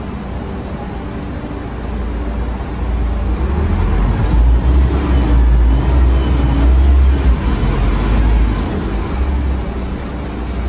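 Truck engine running with a low rumble that grows louder about two seconds in and eases off near the end.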